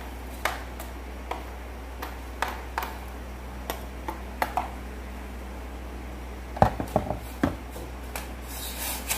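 A metal spoon and a ladle clink and tap against a plastic plate and a stainless steel pot as food is moved into the pot. There are scattered light clicks, then a few louder knocks about seven seconds in, over a steady low hum.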